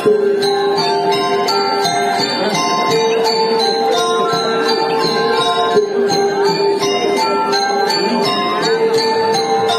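Balinese gamelan playing: bronze metallophones and gongs ringing in many quick short notes over a long held low note that shifts pitch a few times.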